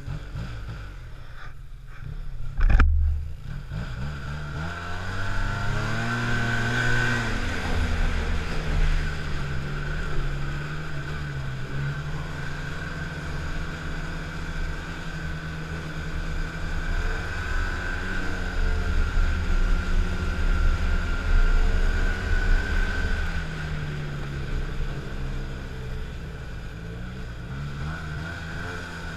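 Snowmobile engine running under throttle, its pitch rising and falling repeatedly as the sled is ridden, with a steady high whine alongside and wind noise on the microphone. A sharp knock about three seconds in.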